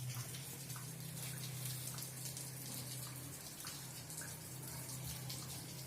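Rain falling steadily: a soft, even patter with scattered drips, over a low steady hum.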